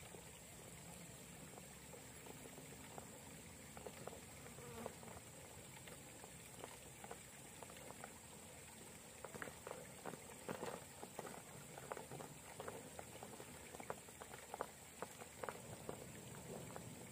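Faint, irregular clicks and patter of tyres and loose grit on rock as an RC crawler climbs. The clicks come thickest in the second half, over a steady faint high hiss.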